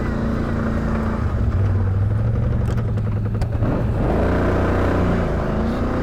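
V-twin ATV engine running at low trail speed; its note settles lower for a couple of seconds, then picks back up about four seconds in. A few short knocks near the middle.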